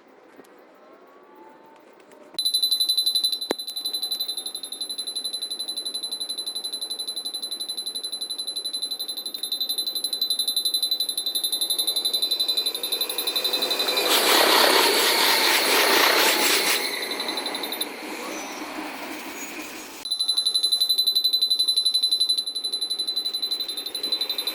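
A Japanese railway level-crossing warning bell starts ringing suddenly with fast, even dings; the audio is played sped up. About halfway through, a train passes with a loud rush over the bell for about three seconds. The bell stops briefly, then starts again near the end.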